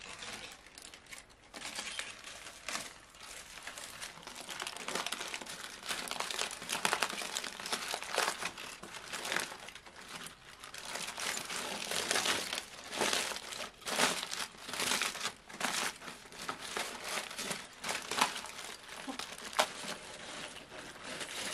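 Aluminium foil crinkling and rustling as a foil-wrapped parcel of cooked food is unwrapped and folded back by hand, in irregular crackly bursts that come and go.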